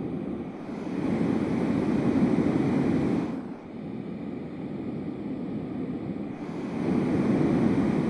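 A LectroFan white noise machine gives a steady hiss, picked up by an Audio Technica AT2020 condenser microphone. It swells about a second in, drops back after about three and a half seconds, and swells again near the end as the machine is moved between the microphone's front and back.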